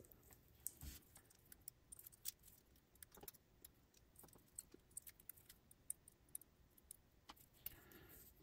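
Near silence broken by faint, irregular small clicks and taps of tiny metal and plastic parts: wheelsets and pickup wipers of an HO-scale model steam locomotive being fitted into its chassis by hand.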